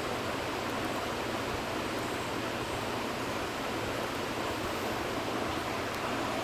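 Steady, even rushing noise with no separate events, like air moving or a fan running.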